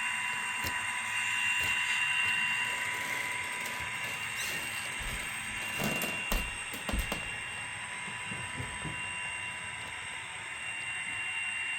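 Model train locomotive running on a layout: a steady high electric whine, with a few light clicks about six to seven seconds in.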